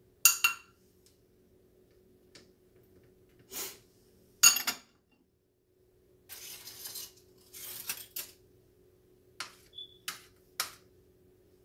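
A metal spoon clinking against a small glass bowl several times, loudest about four and a half seconds in. In the middle comes a stretch of crinkling aluminium foil.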